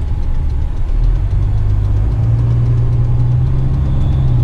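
Heavy rigid truck's diesel engine running steadily at low speed, heard from inside the cab; the engine note rises slightly about two seconds in.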